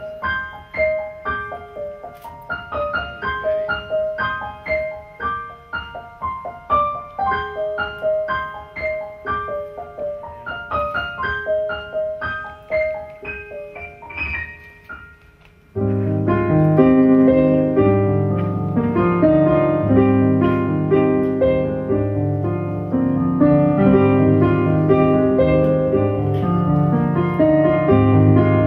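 Electronic stage keyboard with a piano sound playing a slow, repeating figure of single notes. About halfway through it turns suddenly louder and fuller, with sustained low bass notes underneath.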